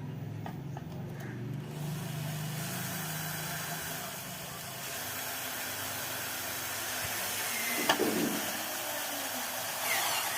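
Electric drill running steadily, a low motor hum giving way to a broad hiss, with a sharp click about eight seconds in.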